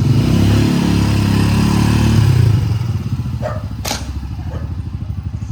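Small engine running, louder and revving for the first two and a half seconds, then easing to a quieter, steady pulsing idle; a single sharp click about four seconds in.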